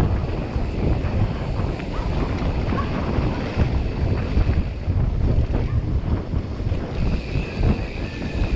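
Heavy wind buffeting on the camera microphone: an irregular, fluttering low rumble with a rushing hiss above it.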